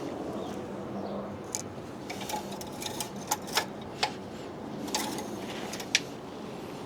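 Engine oil dipstick being handled: a handful of light, sharp clicks and taps, irregularly spaced, over a steady low hiss.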